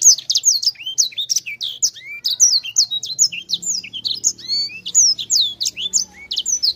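Caged sanger finch singing a fast, unbroken rolling song of rapid high-pitched twittering notes and sweeping whistles, starting and stopping abruptly.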